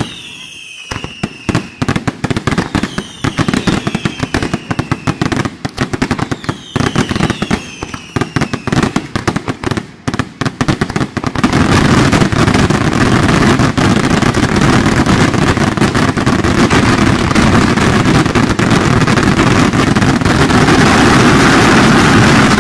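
Aerial fireworks display: a rapid string of sharp bangs, with whistling shells that fall in pitch three times in the first half. About halfway through it turns into a louder, continuous barrage of bangs and crackle.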